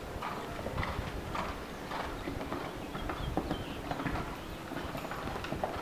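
A horse's hoofbeats at the canter on sand arena footing, a repeating rhythm of dull thuds.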